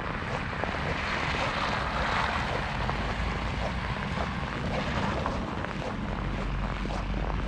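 A car passing on a snowy road, its tyre and engine noise swelling and then fading, over the steady crunch of footsteps on packed snow about twice a second.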